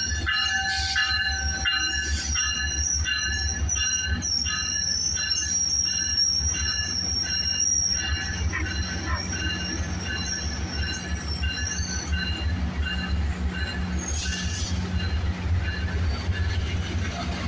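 Passenger train's steel wheels squealing on the rails: a high screech of several pitches at once that wavers in short pulses and dies away about twelve seconds in, over a steady low rumble of the moving train.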